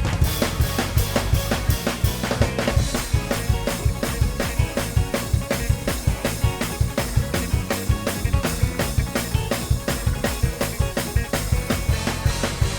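Fast gospel praise-break groove on a drum kit, with rapid bass drum, snare and rimshot hits, over keyboard bass and chords.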